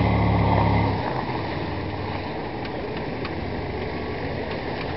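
Off-road 4x4 engine running, with a steady low drone that drops away about a second in, leaving a rough, noisy rumble.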